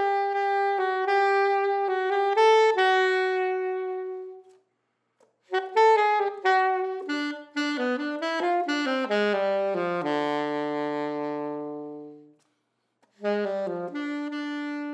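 Unaccompanied alto saxophone playing three phrases separated by short pauses. The first ends on a held note that fades away; the second runs downward to a long low note; a new phrase starts near the end.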